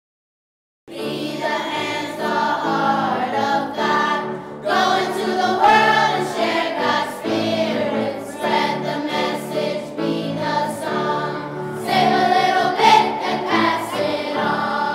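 Children's choir singing, starting suddenly about a second in.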